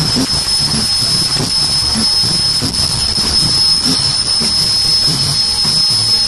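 Automatic face-mask making machine running at speed at its ear-loop station: a steady high-pitched whine over a rhythmic mechanical knocking, about two knocks a second.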